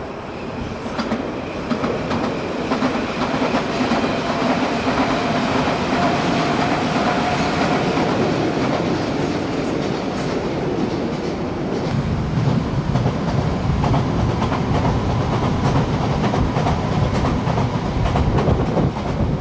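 Nagoya Municipal Subway Higashiyama Line train running on the above-ground track, wheels clacking over the rails. It grows louder over the first few seconds, with a held tone partway through and a heavier low rumble in the second half.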